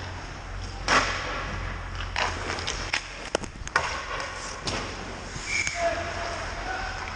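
Ice hockey play in a rink: hockey sticks and the puck clacking on the ice, with the loudest crack about a second in and a few more knocks after it, over a steady low hum.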